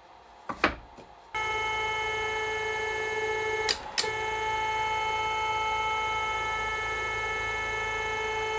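Stepper motor driving the drill press knee's ballscrew through a toothed timing belt, starting about a second in and running at a steady low speed with an even whine of several pitches. About halfway through it cuts out briefly between two sharp clicks, then runs on. A couple of light knocks come before it starts.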